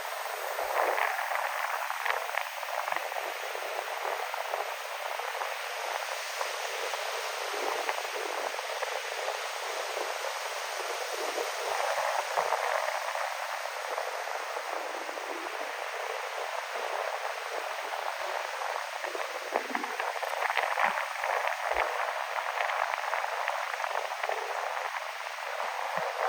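Ocean waves breaking and washing ashore in a strong wind: a continuous rushing noise that swells with bigger waves about two seconds in, around twelve seconds, and again around twenty-one seconds.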